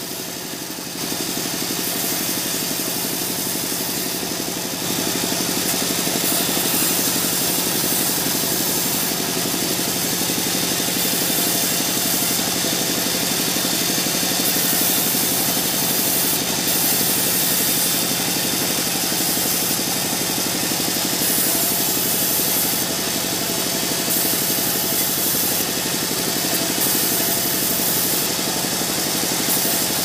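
Small vertical band sawmill running steadily, its blade ripping lengthwise through a mahogany log. The cutting noise swells about a second in and again near five seconds, then holds.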